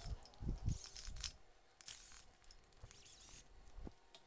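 Faint, scattered clicks and scrapes of small hand tools working on an engine's cylinder head during teardown.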